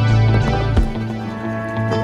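Background music with held, sustained chords over a steady low bass, and a single short thump a little under a second in.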